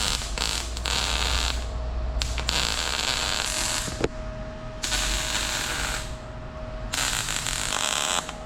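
MIG welder laying short welds on a steel exhaust pipe: four crackling bursts of about a second each, with short pauses between.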